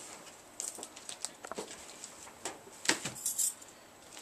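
Handling noise from a removed 14-inch laptop LCD panel being turned over in the hands: scattered light clicks and small scrapes, with a few louder ones about three seconds in.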